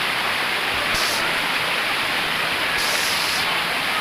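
Waterfall running: a steady rush of falling water with no break.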